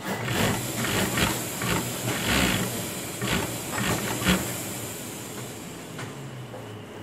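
Sewing-factory machinery: a steady hiss over a low hum, with a run of sharp clacks and knocks through the first four seconds or so that then die away.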